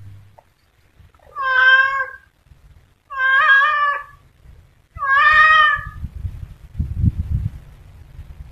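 Domestic cat meowing three times, each meow drawn out for about a second with about a second between them. A low rumble follows near the end.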